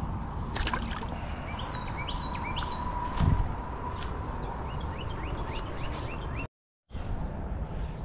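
Small songbirds chirping in short repeated notes over a low rumble, with a single thump about three seconds in. The sound drops out for a moment near the end.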